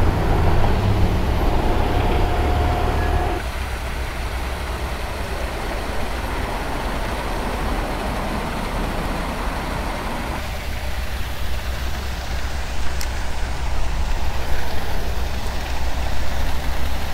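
Road traffic: a steady low rumble of passing vehicles, heavier in the first few seconds and building again near the end.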